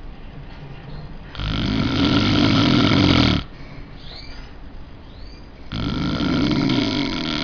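A sleeping man snoring: two loud snores of about two seconds each, one starting about a second and a half in and the next about four seconds later, with quieter breathing noise between.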